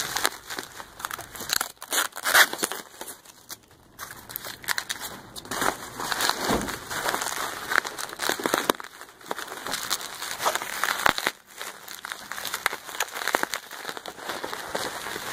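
Packaging crinkling, crumpling and tearing in irregular bursts as a replacement truck quarter window is unwrapped from its packing.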